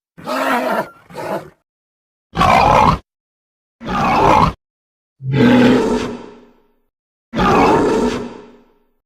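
Fan-made Anguirus kaiju roar sound effects: five separate growling roars, each cut off by dead silence. The last two are longer and trail away.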